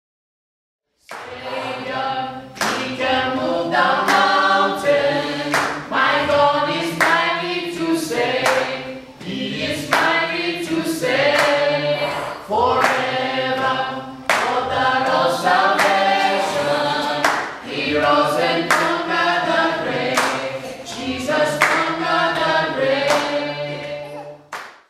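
A group of voices singing a song together, with hand claps keeping a regular beat. It starts about a second in and cuts off abruptly just before the end.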